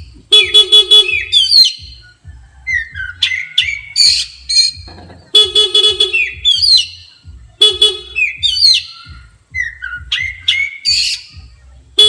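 Oriental magpie-robin (kacer) calling agitatedly in repeated phrases about every two and a half seconds: each a harsh buzzy note followed by sharp, high whistled downslurs.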